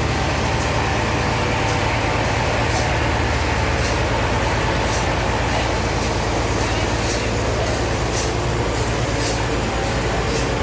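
Sawmill machinery running steadily: a loud low mechanical hum with a short high hiss or click about once a second.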